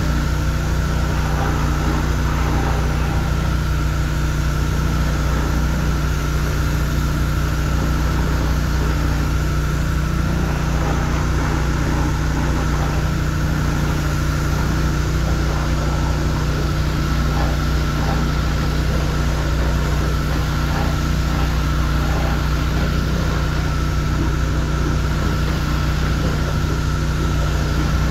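Gas pressure washer's small engine running at a steady speed, with the steady hiss of the water spray over it.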